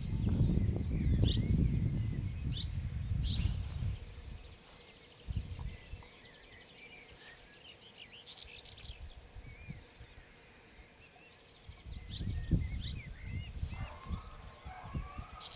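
Small birds chirping and twittering throughout. A low rumble fills the first four seconds, and a faint wavering call comes near the end.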